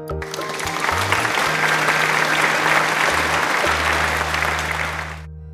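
Applause, many hands clapping, that cuts off suddenly near the end, over background music with a steady bass line.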